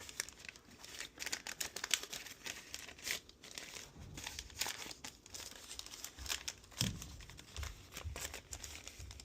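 Plastic bag holding a model kit decal sheet crinkling as it is opened and handled, with irregular rustles and crackles and a few soft low thumps in the second half.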